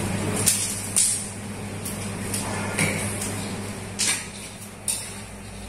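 A thin plastic bag crinkling in several short rustles as pea eggplants are plucked from their stalks and handled over it, over a steady low hum.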